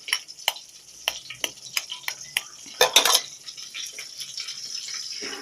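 A metal utensil repeatedly clicking and clinking against a pan while egg is stirred in hot frying oil. About three seconds in the sizzle briefly swells louder, then settles into a steady sizzle.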